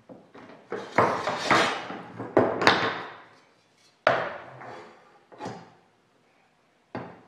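Aluminium wing-rib flange being fluted with a lever-operated fluting tool: a series of sharp metal crunches and creaks as the flange is crimped to take the bow out of the rib. Four loud strokes come close together in the first three seconds, then single, quieter ones about every second and a half as the rib is moved along.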